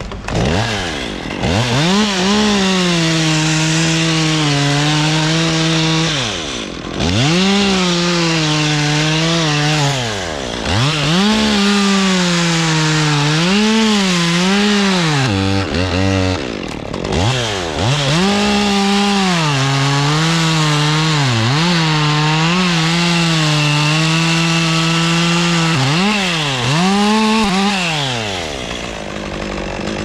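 Two-stroke gas chainsaw cutting into the trunk of a Canary Island pine. It revs up and holds at high throttle in the cut, then drops back toward idle several times between cuts.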